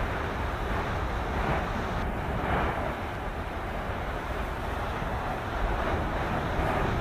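Steady rushing roar and low rumble of a volcanic fissure eruption where lava is setting off steam-blast explosions, swelling and fading about once a second, mixed with wind on the microphone.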